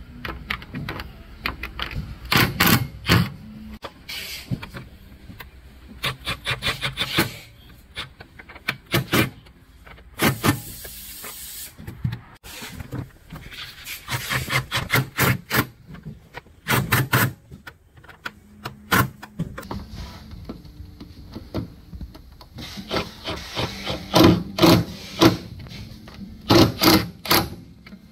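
Metal screws on the rim of a rowing machine's water tank being turned with an L-shaped hand wrench: runs of quick metallic clicks and scraping, coming in several separate bursts.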